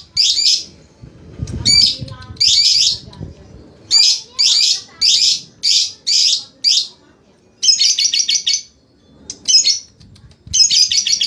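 Lovebird calling in a string of short, shrill chattering bursts, each about half a second. Near the end these run together into a fast continuous trill, the start of the drawn-out 'ngekek' chatter.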